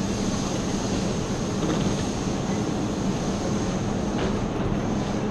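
Steady hum and hiss of a JR Kyushu 303 series subway train standing at the platform with its doors open, passengers moving about it; a brief click about four seconds in.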